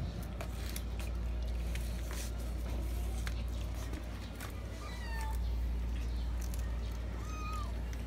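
Cats chewing raw fish, with scattered small wet clicks of eating over a steady low rumble. A short, high, arched mew sounds once about seven seconds in.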